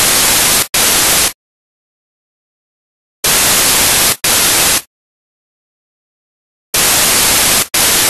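Loud bursts of white-noise static in pairs, each a burst of about a second followed at once by a shorter one. The pairs come about every three and a half seconds and start and stop abruptly, with dead silence between.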